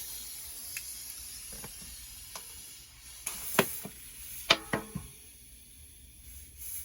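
Scattered light clicks and knocks, the loudest a little past the middle, over a faint high hiss that fades away. These are hands handling the air hose and fittings just before the air compressor is switched on to inflate a tubeless tire.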